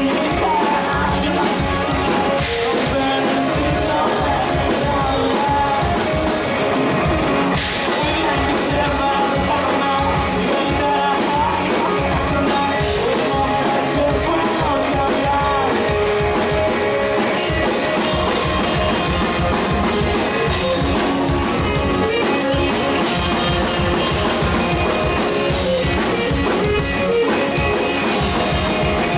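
A punk rock band playing live: a drum kit, guitars and a singer, loud and continuous, picked up by a camcorder's built-in microphone.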